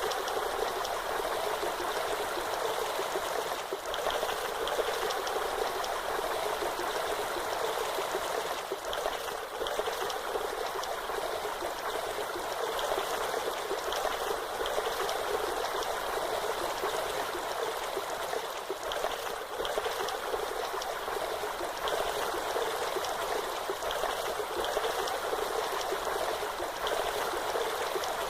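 Steady rushing and splashing of falling water, even and unbroken, with most of its sound in the middle and upper range and little low rumble.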